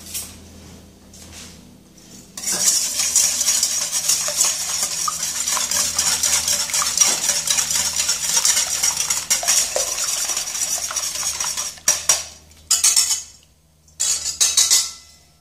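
Wire whisk beating eggs in a stainless steel bowl: a fast, steady rattle and scrape of the wires against the metal bowl that starts about two seconds in, then a few short bursts near the end with a brief pause.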